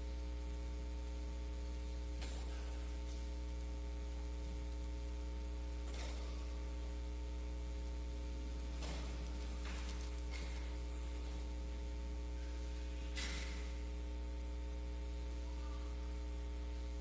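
Steady electrical mains hum through the sound system, with a few faint, brief rustles of Bible pages being turned.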